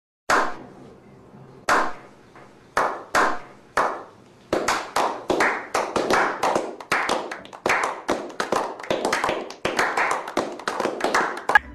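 A slow clap building into applause: single hand claps well spaced at first, then from about four seconds in more hands join and the claps come faster and overlapping.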